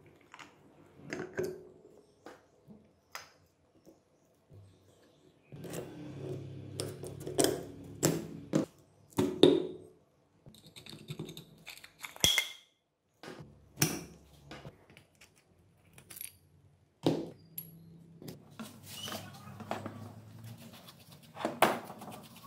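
Irregular clinks and knocks of metal parts and a socket wrench being handled as a starter motor is taken apart by hand.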